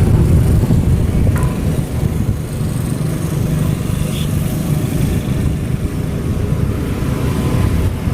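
Strong wind buffeting the microphone: a loud, gusting low rumble, with a single faint click about a second and a half in.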